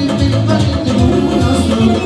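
Loud live band music, an amplified Azerbaijani dance medley of drum kit, clarinet, plucked long-necked lute and accordion, with a singer at the microphone.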